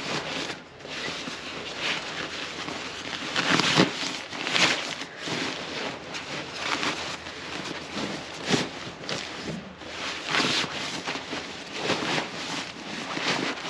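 Nylon fabric rustling and crinkling in irregular surges as a down sleeping bag is stuffed by hand into a waterproof compression sack.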